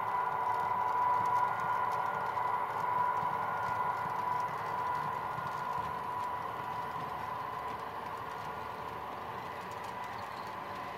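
Model Union Pacific diesel streamliner passing on a layout: the DCC sound decoder's diesel engine sound from the locomotives' speakers, a steady hum with several held tones, slowly fading as the engines move away, with light clicking of model wheels over the rails.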